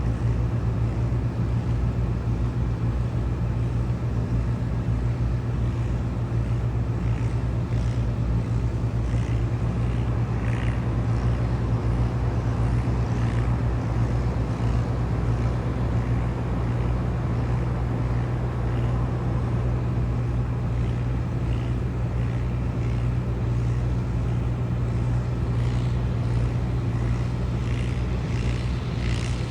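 John Deere tractor's six-cylinder diesel engine running steadily under load while pulling a small square baler, with faint ticks from the machinery over the drone.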